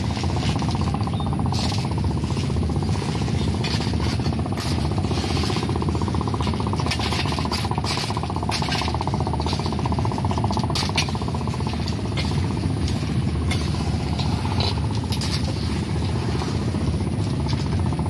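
A small engine running steadily with a low, fast-pulsing rumble, with scattered scrapes and clinks of a metal spatula stirring food in a pan.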